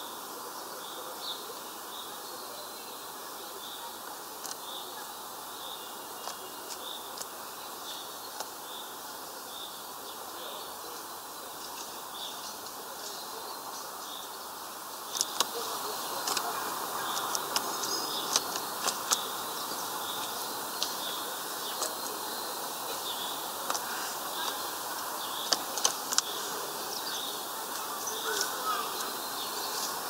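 Great tit splashing in a shallow plastic water dish as it bathes, sharp wet flicks and splashes that start about halfway through and come irregularly. Behind it, a bird repeats a short high call more than once a second over a steady outdoor hiss.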